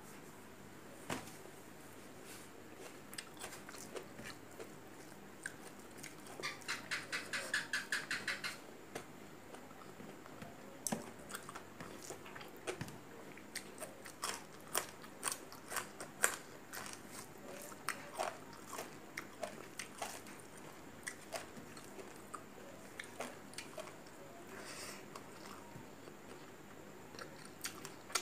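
Close-miked eating sounds: chewing and crunching of raw vegetables and rice taken by hand, with scattered sharp clicks and a quick run of crunchy chews about seven seconds in.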